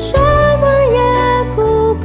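Mandarin worship song playing, its chorus sung by a voice over sustained accompaniment with a low bass.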